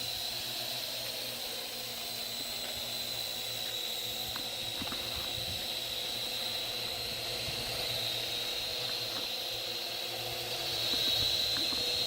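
Parrot AR.Drone quadcopter's four electric motors and propellers whining steadily with a hiss of air, the pitch wavering slightly; it grows a little louder near the end.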